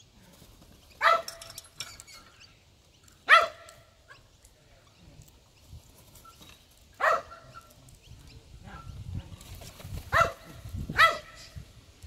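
A pet dog barking, five single sharp barks spaced a few seconds apart: demand barking to get her ball kicked.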